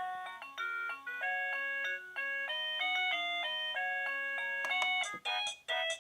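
KooPower wireless doorbell receiver playing one of its electronic chime melodies, a tune of clean beeping notes. A little after five seconds in, the tune breaks off and a different, quicker melody starts as the receiver steps to its next melody.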